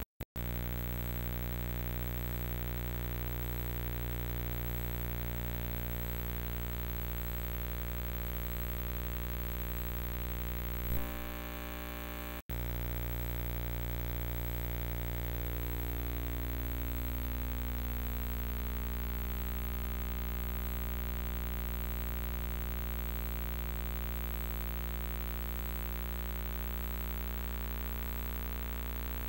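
Steady electrical hum and buzz with many overtones, the noise of an old game-film-to-DVD transfer that carries no game sound. It cuts out for an instant twice, near the start and about twelve seconds in.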